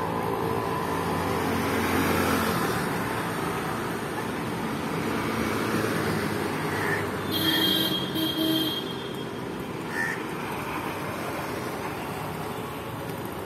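Steady traffic noise from passing vehicles, with a few short crow caws about seven and ten seconds in. A brief high steady tone is loudest around the middle.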